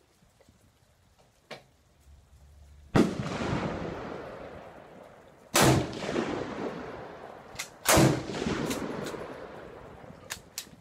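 Three loud rifle shots about two and a half seconds apart on a shooting range, each followed by a long rolling echo that fades over a couple of seconds. A few light clicks follow near the end.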